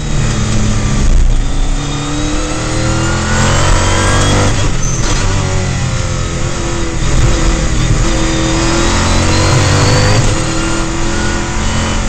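Mosler race car's V8 engine heard from inside the cockpit, revs climbing hard then dropping back sharply several times as the driver shifts and brakes for corners.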